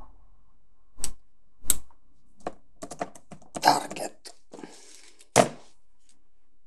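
Computer keyboard keys clicking as a name is typed. A few single keystrokes come first, then a quick run of them around the middle, and a last sharp, loud click a little past five seconds in.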